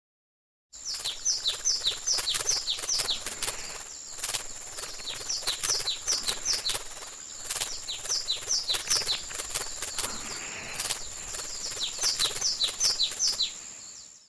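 Birds chirping in quick runs of short, falling chirps over a steady high-pitched ring, with scattered light clicks. It starts abruptly just under a second in and cuts off abruptly at the end.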